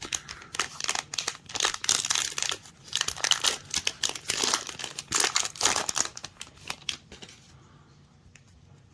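Plastic wrapper of a trading card pack being torn open and crinkled by hand, a rapid run of crackling rustles that stops about seven and a half seconds in.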